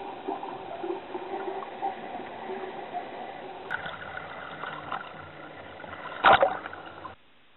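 Underwater gurgling and bubbling from scuba gear. A few seconds in it gives way to surface water sloshing and lapping at the waterline, with a dive boat's engine running. About six seconds in there is a loud slosh as a wave washes over the camera.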